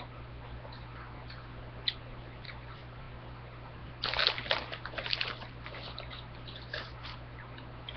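Close-up crunching of tortilla chips being chewed, scattered at first and then a dense run of crunches about four seconds in, lasting over a second before thinning out.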